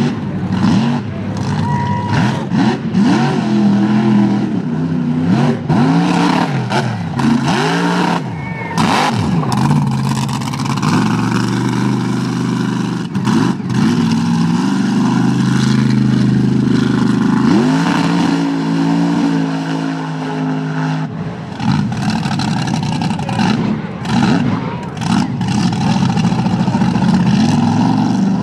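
Supercharged big-block Chevy V8 of a mega mud truck revving hard as it churns through a mud pit. Its pitch sweeps up and down again and again with the throttle, settling to a steadier note for a few seconds past the halfway point.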